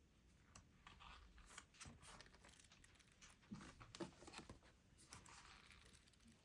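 Near silence with faint rustling and scattered light clicks, as of small objects or packaging being handled.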